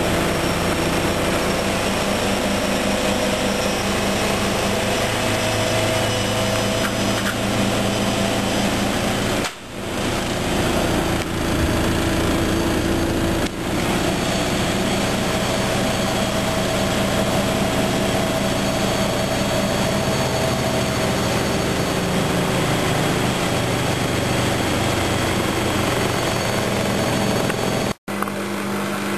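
Washing machine running: a steady, loud mechanical hum and whine over a dense noise, briefly dropping away twice.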